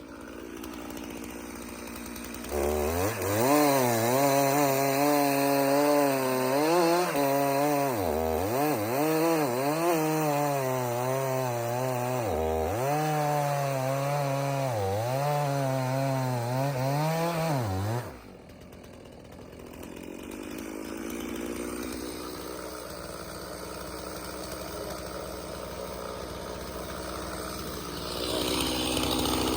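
Two-stroke chainsaw running at full throttle through a log, its engine note dipping again and again as the chain bogs in the cut and then recovering. About 18 seconds in it drops abruptly to a much quieter engine sound, which picks up again near the end.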